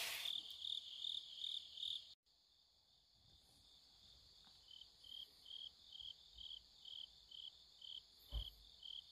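Crickets chirping in even, high-pitched pulses, about two to three a second. The chirping cuts out for about a second, then carries on at a slightly lower pitch, with a soft thump near the end.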